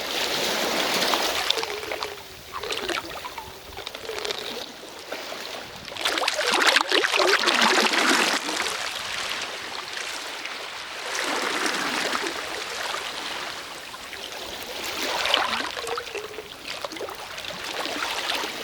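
Sea waves washing in and drawing back, a hissing rush of water that swells and fades in surges every four or five seconds.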